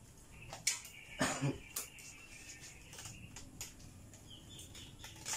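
Scattered knocks, taps and a heavier thump about a second in, from a person climbing the wooden roof trusses of a nipa hut. A faint long high call sounds behind them.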